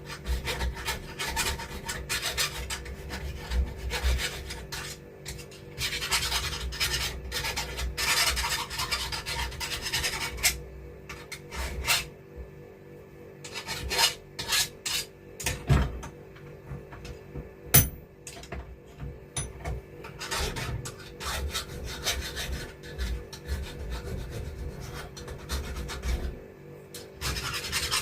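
Hand filing to deburr a freshly machined metal lathe part: irregular scraping strokes with pauses, over a steady low hum. A single sharp click about two-thirds of the way through is the loudest sound.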